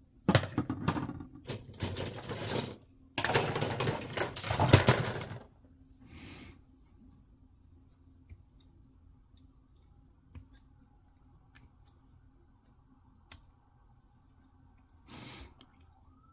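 Plastic model kit parts and runners being handled, clattering and clicking for about the first five seconds, then only occasional faint clicks.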